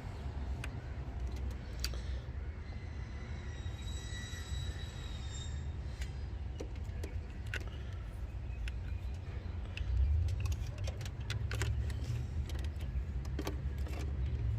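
Scattered light metallic clicks and clinks of tools and a spark tester being handled, over a steady low rumble.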